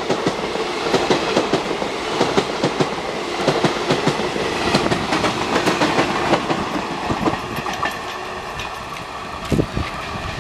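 Indian Railways train passing at speed, its wheels clattering over the rail joints in a quick irregular run of knocks above a continuous rumble of the cars going by. The clatter thins out and eases off in the last few seconds as the end of the train passes.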